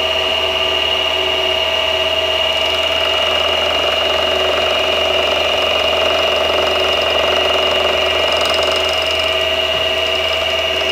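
Mini milling machine spindle running with a steady whine while its tooth cutter is fed across a timing-pulley blank, cutting one tooth groove. The sound turns rougher and grittier through the middle as the cutter bites into the work.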